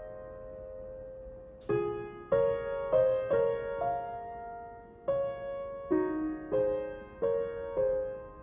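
Background music: a slow, gentle piano piece. A held chord fades for the first second and a half, then notes are struck one after another, roughly every half second, each ringing and fading.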